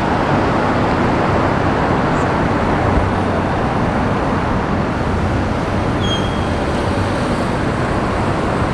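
Steady city road traffic noise from cars moving along a street.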